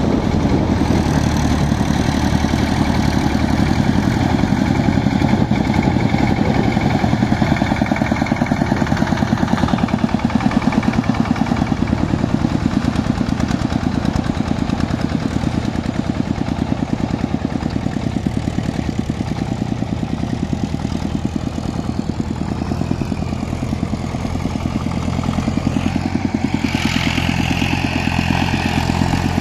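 Diesel engines of a farm tractor and a two-wheeled power tiller running steadily under load in a flooded paddy field, a fast, even chugging.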